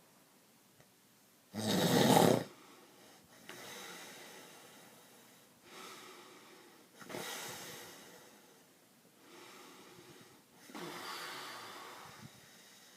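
Snoring: one loud, rasping snore about two seconds in, then a run of softer, slow snoring breaths, each swelling and fading over a second or two.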